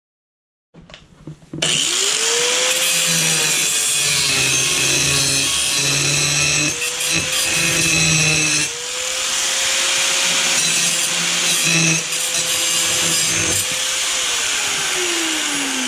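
Drill Master angle grinder with a cut-off disc spinning up with a rising whine about a second in, then cutting through metal panelling with a loud, steady grinding hiss. Near the end the motor winds down with a falling whine.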